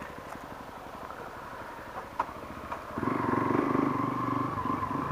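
Motorcycle engine idling low, with a couple of light clicks, then picking up and running louder as the bike pulls away about three seconds in.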